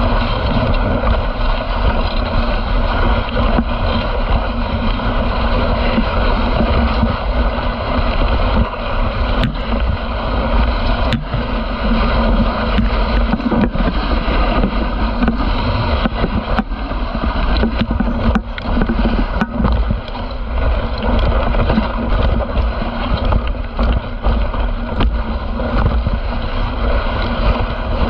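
Dog sled running over a groomed snow trail: a steady hiss and scrape of the runners on the snow, with wind on the microphone and a few sharp knocks from the sled.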